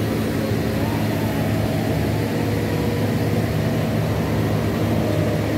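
SANY tracked excavator's diesel engine running steadily close by, a deep, even drone.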